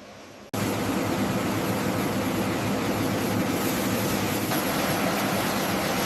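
Steady, loud vehicle engine noise that cuts in suddenly about half a second in and holds even.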